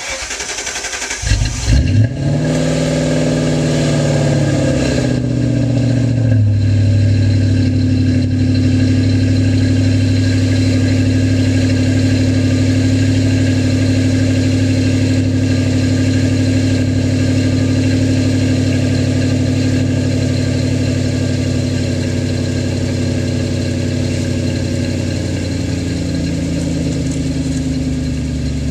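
2000 Lincoln LS 3.9-litre V8 through Flowmaster 40-series mufflers with the resonator deleted for straight pipe, starting up at the exhaust. The starter cranks for about a second, the engine catches with a brief flare in revs, then runs at a fast idle that drops and settles into a steady idle about six seconds in, easing a little lower near the end.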